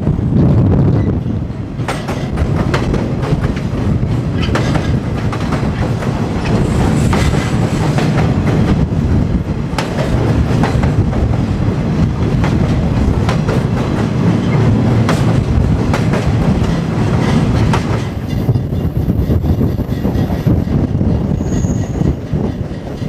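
Freight train rolling along the track: a steady low rumble of steel wheels on rail, with a stream of sharp clicks and clacks as the wheels cross rail joints.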